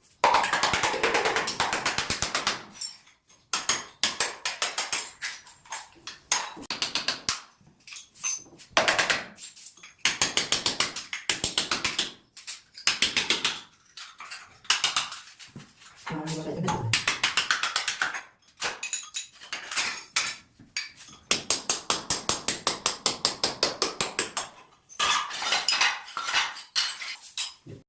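Rapid, repeated hard clicking strokes of a hand tool on tile, several a second, in bursts of one to three seconds with short pauses between.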